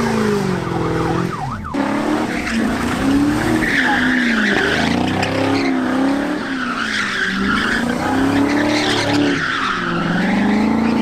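Car engine revving up and down hard while the tyres squeal and skid through a burnout and donuts. There is a brief break just under two seconds in.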